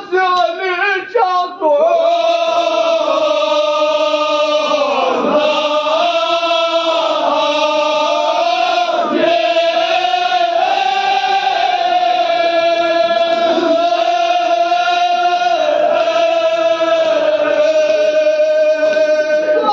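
A man's voice chanting a Kashmiri marsiya, a Shia mourning elegy. After a short broken phrase it settles about two seconds in into long, slightly wavering held notes.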